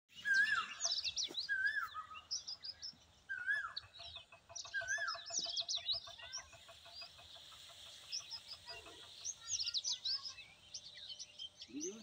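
Several birds calling at once: high chirping and twittering throughout, a whistled rising-and-falling phrase repeated four times in the first five seconds, and a fast run of short repeated notes in the middle. A single falling call comes right at the end.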